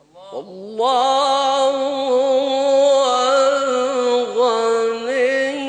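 Male Quran reciter singing one long, drawn-out melodic phrase, the note wavering in ornaments and stepping up in pitch about halfway through before it stops at the end.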